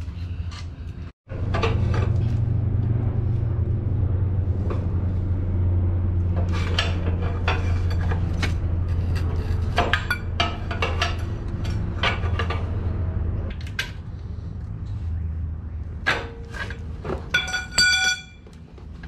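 Metal tools and bolts being handled while parts are fitted to a generator frame: scattered knocks and clicks, with a few ringing metallic clinks near the end, over a steady low hum that fades out in the second half.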